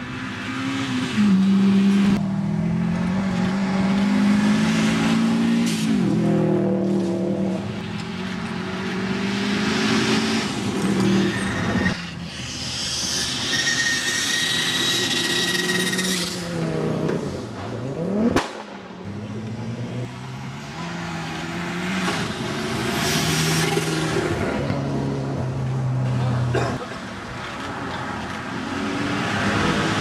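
Rally cars passing one after another at speed on a gravel stage, their engines revving hard and dropping back through gear changes. A high-pitched whine runs for a few seconds midway.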